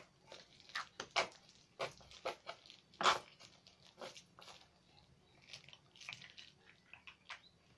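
Scattered clicks and taps of small plastic bottles and caps being handled and opened over a table, with a sharper knock about three seconds in.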